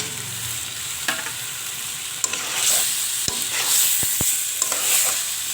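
Chicken pieces and potatoes frying in spiced oil in a pot, sizzling steadily, while being stirred. A utensil knocks sharply against the pot a few times, and the sizzle swells from about halfway in as the stirring picks up.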